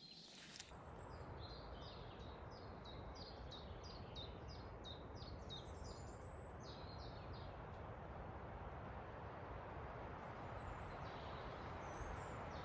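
Steady wind through a forest, with a songbird singing a run of a dozen or so short high notes, each sweeping downward, about three a second, over the first half; a fainter bird call comes near the end.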